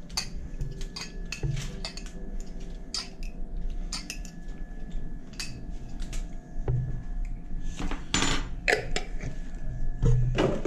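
Metal fork clinking and scraping against a small glass jar of sliced red bell peppers: a run of light, irregular clicks. Near the end come a couple of louder rustles.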